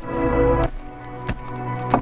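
Background music: sustained chords with a few sharp percussive hits, about three in two seconds.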